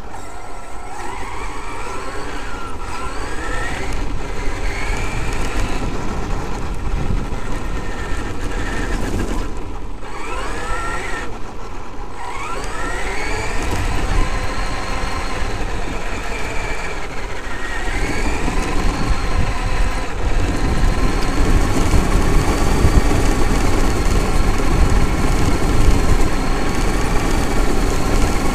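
The brushless electric motor and drivetrain of a Traxxas X-Maxx RC monster truck whine, rising in pitch several times as it accelerates, over rumble from the tyres and the body. In the later part the truck runs on gravel: a steady crunching hiss under a steadier whine.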